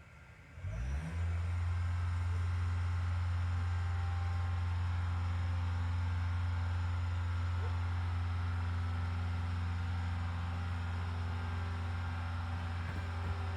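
Diesel engine of a piece of earthmoving equipment starting about a second in, its pitch rising briefly before it settles into a steady, even run.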